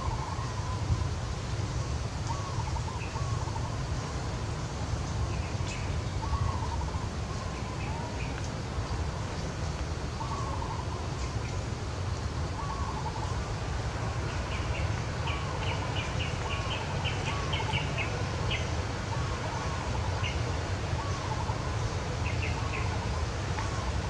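Birds calling: a short repeated note about once a second, with a run of quick higher chirps in the second half, over a steady low rumble.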